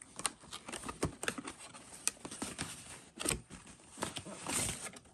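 A cardboard product box being opened and emptied by hand: an irregular string of clicks and taps, with rustling of cardboard and packaging between them.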